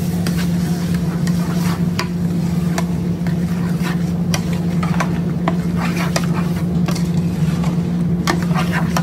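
Long metal spoon stirring and scraping chopped onions and turmeric around a large aluminium pot, with irregular clinks and scrapes against the metal and the onions sizzling in oil. A steady low hum runs under it.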